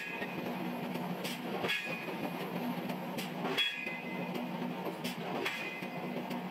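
Forging machine working steel: a metallic clank about every two seconds, each ringing briefly and preceded by a lighter tick, over a steady machine hum.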